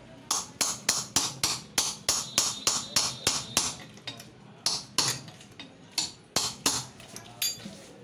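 Hammer striking a punch against the rim of a monoblock water-pump motor's end plate: steady, sharp metallic taps about three a second, a short pause about four seconds in, then more taps. Light blows worked all around the rim to knock the end plate loose without cracking it.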